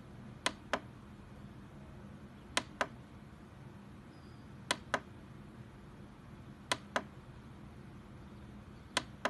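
Sharp double clicks, the two clicks of each pair about a quarter second apart, repeating evenly about every two seconds over a faint steady hum.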